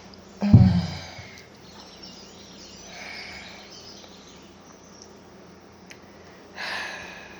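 A single sharp, loud cough about half a second in, followed by two softer, audible breaths. The cough and breathing are from a COVID-19 infection.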